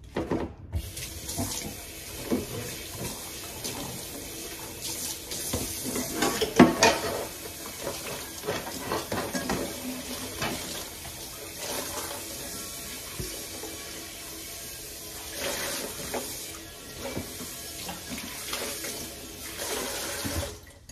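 Water running from a kitchen tap into a sink, with knocks and clatter now and then. The water starts about a second in and stops just before the end.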